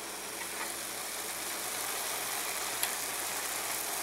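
Ground venison sizzling steadily in a skillet as it browns, with one light tick near the three-second mark.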